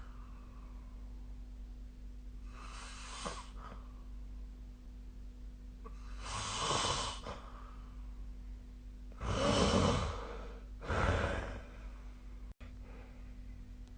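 A sleeping person snoring: four heavy, noisy breaths, the loudest two close together a little past the middle, over a steady low hum.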